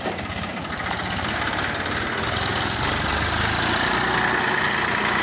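Massey Ferguson 7235 DI tractor's three-cylinder diesel engine running under load as it pulls a trailer heavily loaded with firewood. The steady diesel clatter grows louder as the tractor draws near and passes.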